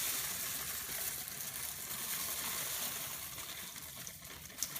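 Cornflakes pouring from the packet into a bowl, a steady dry rustling hiss, with a sharp click near the end.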